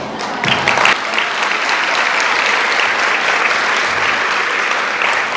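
Large audience applauding steadily, starting about half a second in.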